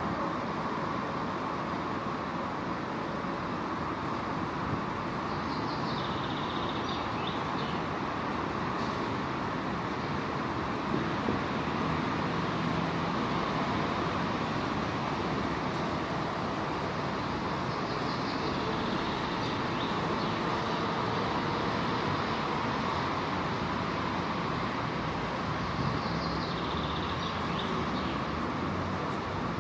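Steady background hum of distant traffic, with faint high bird chirps about three times.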